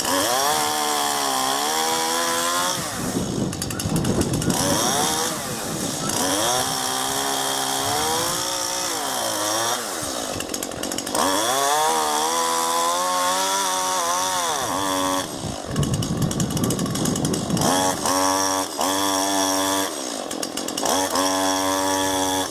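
Chainsaw running at full revs and cutting a fallen ash limb. Its pitch dips and rises again several times as the chain bogs down in the wood and frees.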